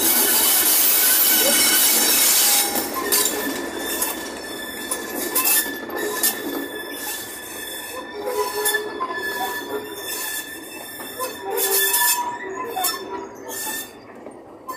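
Diesel locomotive passing close by for the first couple of seconds, then a rake of open freight wagons rolling past: repeated clicks and clanks from the wheels with thin, high wheel squeals.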